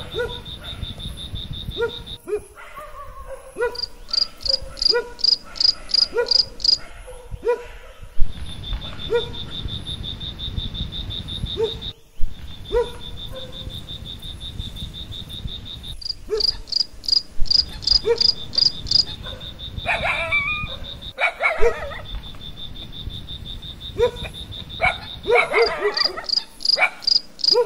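Insects trilling in forest: a steady, high, fast-pulsed trill that breaks off and starts again several times, overlapped by runs of sharper chirps at about three a second. Short low rising calls repeat roughly once a second over a low rumbling background.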